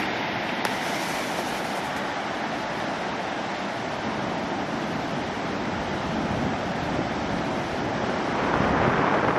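Strong wind blowing across the microphone, a steady rushing noise that grows a little louder near the end.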